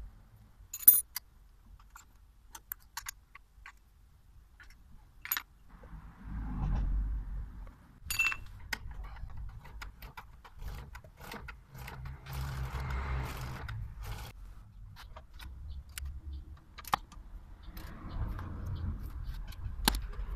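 Scattered metallic clicks and clinks of tools and brake parts being handled while working on a motorcycle's brakes, the loudest a sharp click about a second in. Patches of dull low rumble come and go between them.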